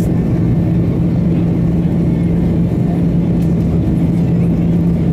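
Airbus A330-300 cabin noise in flight, heard from a window seat beside the wing: the steady drone of the jet engines and rushing air, with a constant low hum running through it.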